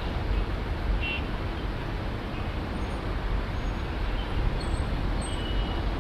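Steady low rumble and hiss of airport background noise: distant jet engines across the airfield, with a brief high chirp about a second in.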